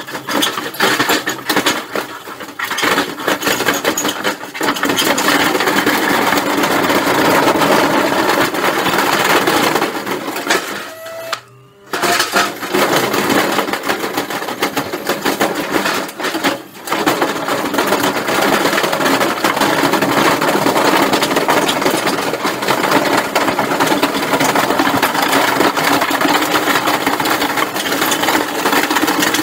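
A machine running with a loud, fast, dense rattling clatter; it cuts out briefly about eleven seconds in and dips again about five seconds later.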